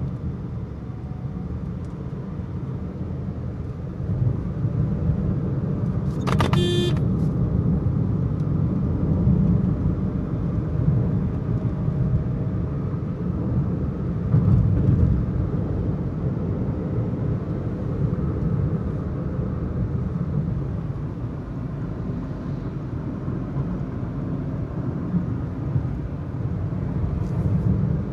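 Car driving on a highway, heard from inside the cabin: a steady low rumble of engine and road noise, a little louder from about four seconds in. A brief pitched tone sounds once, about six seconds in.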